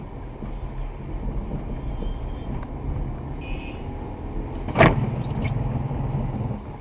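Car driving on a snowy road, heard from inside as a steady low drone of engine and tyres. A single short sharp click or knock comes about five seconds in, followed by a couple of fainter clicks.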